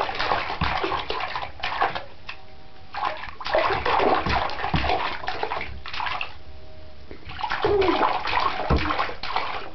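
A baby splashing the bathwater in a tub with his hands, in three bouts with short pauses between.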